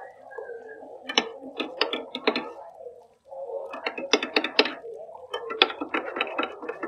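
A metal ladle scooping and pouring braising sauce over roast pork in a stainless steel pot: repeated sharp clinks and knocks of the ladle against the pot, with splashing of the liquid. There is a brief lull about three seconds in.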